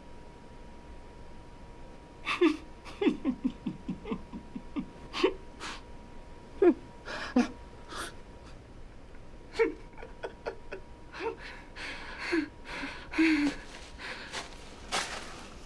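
A man gasping and whimpering in pain, in short uneven bursts of ragged breaths and strained cries every second or so.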